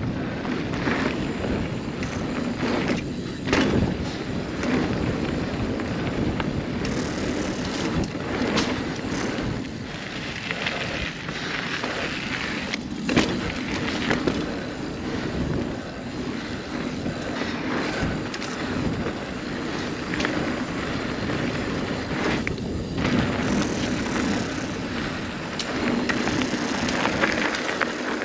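Steel hardtail single-speed mountain bike ridden over a dirt trail: knobby tyres rolling with a continuous rough noise, broken by frequent knocks and rattles as the bike goes over bumps.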